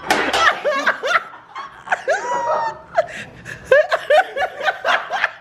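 People laughing hard in short, repeated bursts of pitched laughter.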